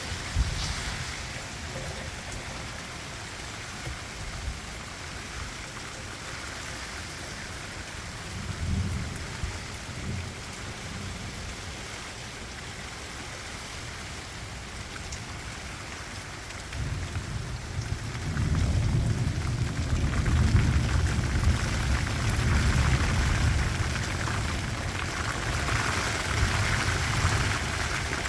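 Rain falling steadily in a thunderstorm. A low rumble swells briefly about a third of the way in, then builds and stays louder from about two-thirds of the way through.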